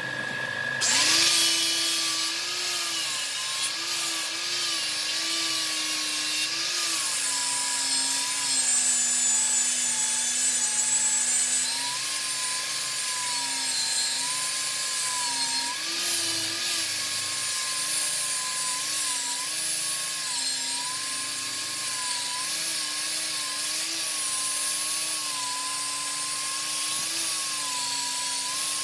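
Wood lathe running with a turning tool cutting the spinning wood: a high scraping hiss over a motor tone that wavers in pitch as the cut bites. The cut comes in about a second in and is heaviest, with the motor tone dropping, from about eight to twelve seconds in.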